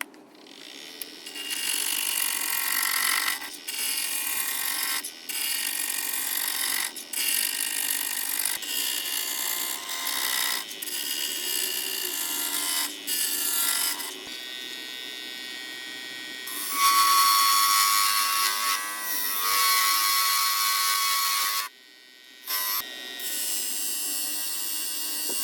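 Wood lathe running while a turning tool cuts a spinning wood blank: a steady motor hum under the hiss of the cut, broken by short gaps every second or two as the tool comes off the wood. About two-thirds of the way through, the cutting gets louder, with a high steady whine.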